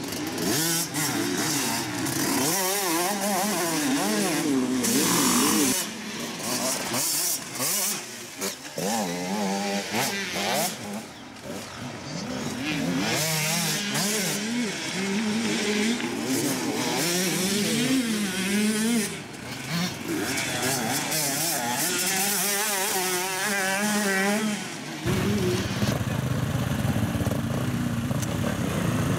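Enduro motorcycle engines revving up and down as the bikes ride through turns on a dirt-and-grass course, the pitch rising and falling with the throttle. Near the end the sound changes to bike engines running steadily at low revs.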